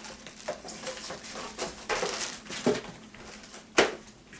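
Packaging and gear being handled: irregular rustling and light knocks, with one sharper knock near the end.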